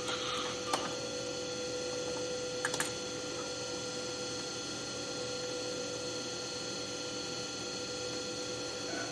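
A steady hum made of several even tones. A light click comes just before a second in, and a quick pair of clicks near three seconds in.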